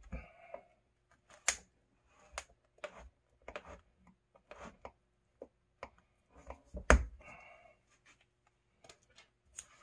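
Scattered small clicks, taps and short scrapes of metal needle-nose pliers working at a vinyl window frame, prying out a staple that holds the fuzzy weather strip in its groove. The sharpest click comes about seven seconds in.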